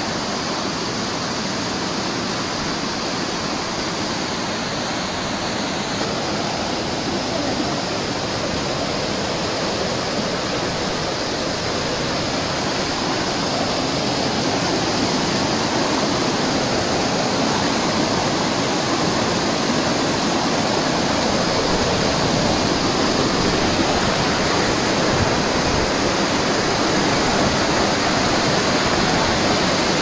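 Mountain waterfall and its stream rushing and splashing over boulders in a steady roar of water, growing a little louder in the second half.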